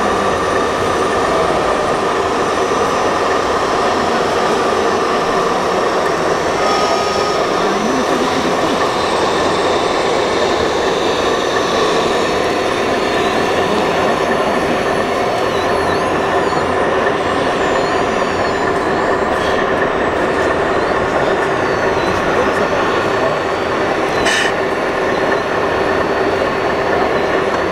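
1/14-scale RC construction models running, with electric motors and gears whining over a steady mechanical drone. The whines rise and fall as the machines move.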